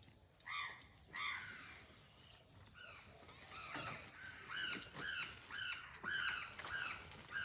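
Crows cawing: about a dozen short, hoarse caws, spaced out at first and coming faster in the second half.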